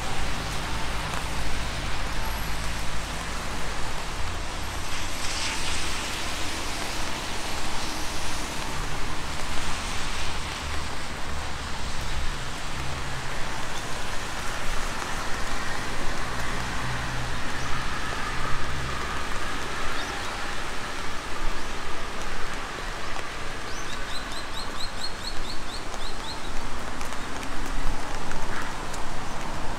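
Steady rain falling on a park, with road traffic rumbling and tyres hissing on the wet road close by. A bird gives a short run of quick chirps late on.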